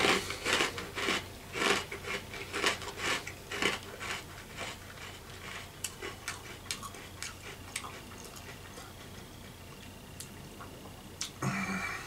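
Crunchy peanut butter cereal puffs being chewed close to the microphone, about two crunches a second. The crunching is loud at first, then thins to faint clicks and stops. A brief vocal sound comes near the end.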